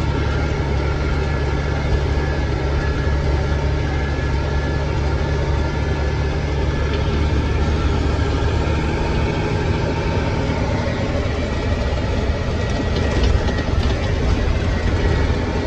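A log truck's diesel engine runs steadily under way, heard from inside the cab, with a low drone and a steady rush of road noise.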